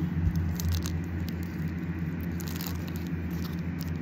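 Light crinkling of cellophane candy wrappers as the wrapped candies are handled and set down, over a steady low hum.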